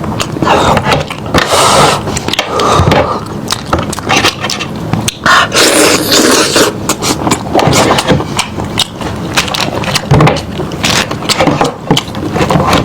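Close-up eating of a lamb head: wet chewing, sucking and lip-smacking, with many quick clicks and scrapes as meat is worked off the bone.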